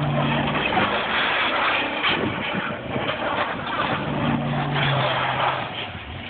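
GMC Sierra Denali pickup's V8 engine revving as the truck spins its tyres through snow in doughnuts, with a loud rushing hiss of wheels churning and throwing snow. The engine note rises and falls twice, and the sound eases off near the end.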